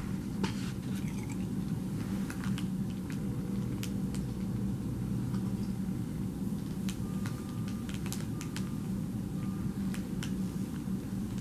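Steady low machine hum with scattered small clicks, and a few faint short high beeps in the second half.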